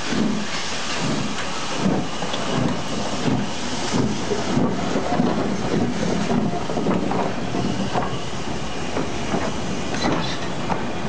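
Southern Railway S15 4-6-0 steam locomotive pulling away from a stand, its exhaust chuffing in repeated beats that come closer together as it gathers speed, with a steady hiss under them. Near the end its coaches roll past close by, wheels clicking over the rail joints.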